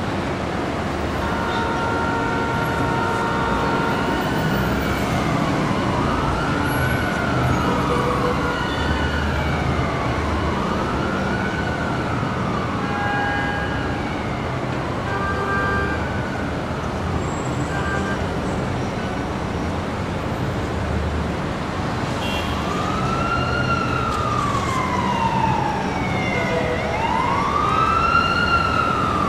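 Emergency-vehicle siren wailing in slow rising and falling sweeps over steady street-traffic rumble. The siren fades out around the middle and comes back louder near the end, and a few short steady tones like car horn honks sound early and midway.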